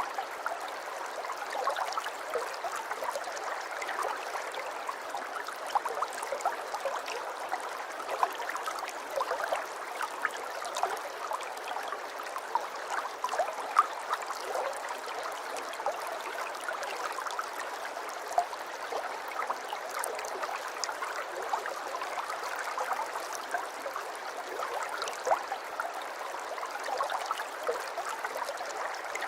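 Aquarium water trickling and bubbling steadily, a constant run of small splashes and bubble pops.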